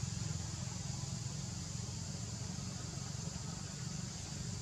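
Steady outdoor background noise: a low rumble with a steady high hiss over it, no distinct calls or knocks.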